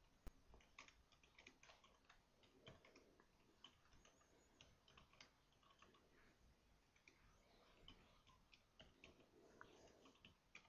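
Very faint, irregular clicks of a computer keyboard being typed on, barely above silence.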